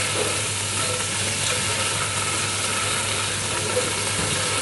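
Ginger-garlic paste sizzling in hot ghee in a pan as it is sautéed: a steady frying hiss, with a steady low hum underneath.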